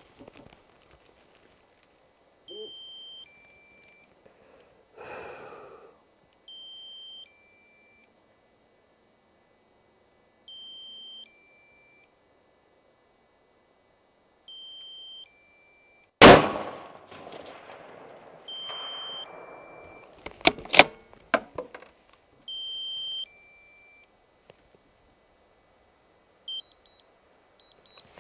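A single rifle shot about 16 seconds in, fading out after the crack, followed about four seconds later by a few sharp clicks. Throughout, a drone remote controller repeats a short three-note beep about every four seconds: its low-battery warning.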